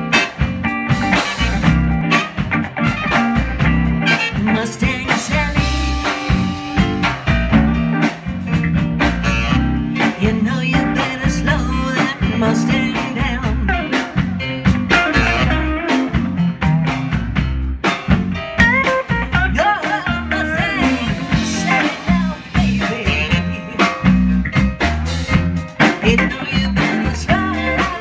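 A live band playing a song, with bass notes, drums and guitar.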